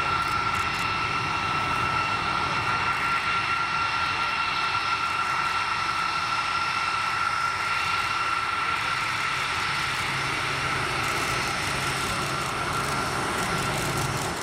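The four CFM F108 turbofans of a Boeing KC-135R tanker running at taxi power as it rolls slowly past: a steady whine with a clear high tone over a broad rush of engine noise, the tone fading near the end.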